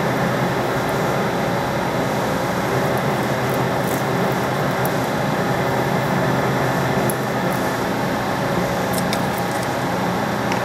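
Metal lathe running with a form tool taking a cut on a spinning threaded steel part, a steady machine hum and cutting noise without chatter, with a few faint ticks of chips.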